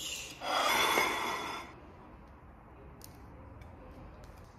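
A short, loud hiss about half a second in, lasting just over a second, followed by a few faint clicks of metal kitchen tongs against a glass baking dish.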